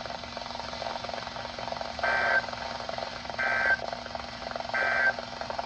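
NOAA Weather Radio EAS end-of-message code: three short bursts of screechy digital data tones, about a second apart, marking the end of the alert. A steady radio hiss and low hum run underneath.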